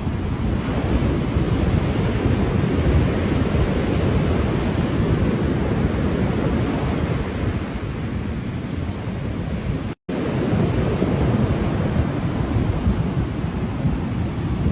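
Ocean surf washing steadily, a dense rumbling wash of waves, which cuts out for an instant about ten seconds in.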